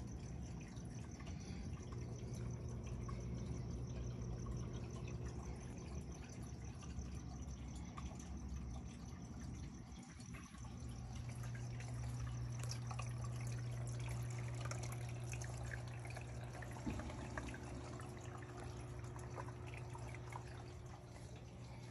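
Aquarium water circulation: water trickling and dripping over a steady low pump hum, the hum dropping out briefly about halfway through.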